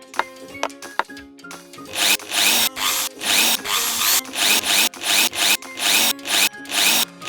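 Toy drill whirring in short repeated spurts, roughly two a second, starting about two seconds in, as it drives a plastic bolt.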